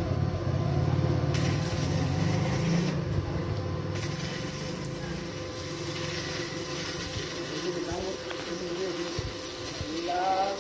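Electric arc welding on a steel tractor hydraulic lift arm: the arc's steady crackling hiss, starting about a second and a half in, breaking off for about a second, then running on. A low hum sounds under the first couple of seconds.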